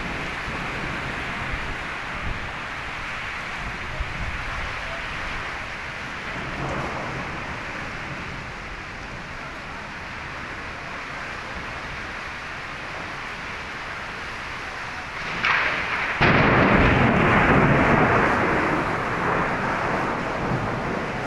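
Heavy rain falling steadily. About three-quarters of the way through comes a sudden loud thunderclap, the loudest thing here, which rumbles for a few seconds and then fades back into the rain.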